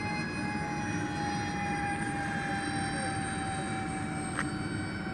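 Electric ducted-fan jet whine from a Supreme Hobbies Airbus A330-600 radio-controlled model airliner in flight: several steady whining tones sliding slowly down in pitch over a rushing noise. A single sharp click about four seconds in.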